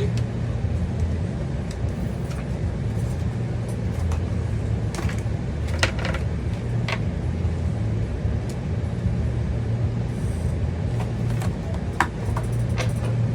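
Steady low background hum with a few short, light clicks and taps of small paintball-marker parts being handled at the bench.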